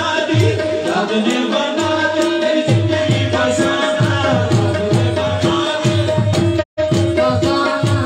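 Qawwali music: voices singing over a steady held drone note and a driving hand-drum rhythm. The sound cuts out for an instant shortly before the end.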